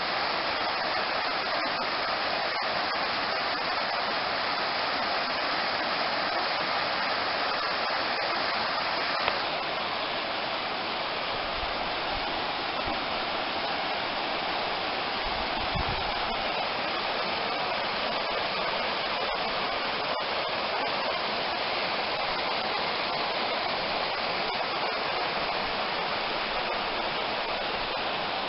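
Waterfall rushing steadily: a constant, even roar of falling water, with a faint click about nine seconds in where the sound shifts slightly.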